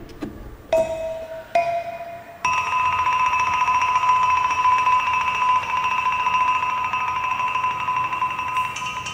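Chime-like mallet notes: two short notes about a second apart, then one long ringing tone that slowly fades.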